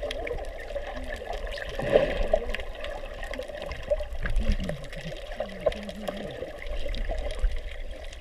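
Muffled underwater sound heard through a GoPro's waterproof housing: water moving around the camera, with many faint scattered clicks and a louder swell about two seconds in.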